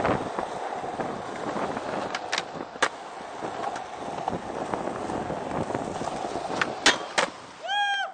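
Skateboard wheels rolling on smooth concrete, with sharp board clacks about two and a half and three seconds in and twice more near seven seconds. A short squeal with a falling pitch comes near the end.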